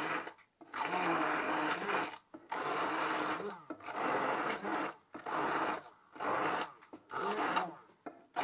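Hand-held immersion blender run in short bursts, about six, with the motor spinning up and dropping off each time as it purées a thick mash of cooked beetroot and rocket in a pot.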